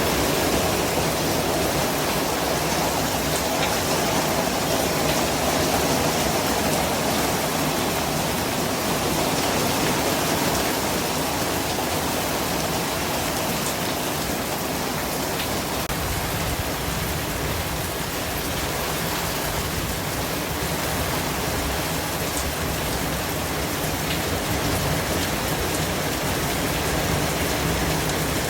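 Steady white-noise hiss, an even rushing sound across all pitches, much like heavy rain or falling water, with a few faint ticks in it.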